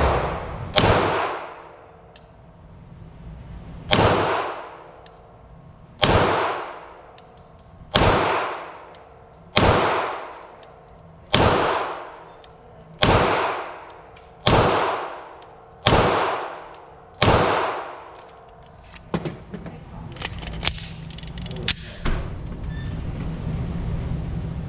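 A 9mm Glock pistol fired about eleven times at a slow, steady pace, roughly one shot every one and a half to two seconds. Each shot rings on in a long echo off the concrete range. After the last shot come a few lighter clicks and knocks, over a steady low hum.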